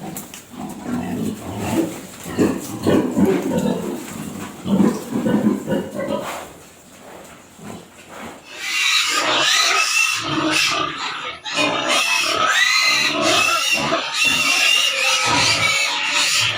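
Pigs grunting in low, rough pulses, then about halfway through breaking into loud, high-pitched squealing.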